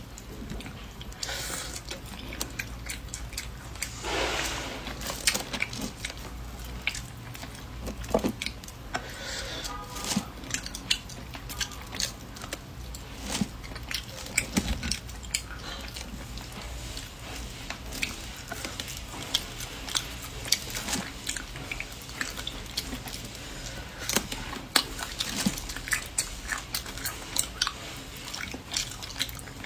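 Boiled crayfish shells being cracked and peeled by hand, with chewing of the meat: many small cracks, crackles and wet mouth sounds, and a denser rustling crackle about four seconds in.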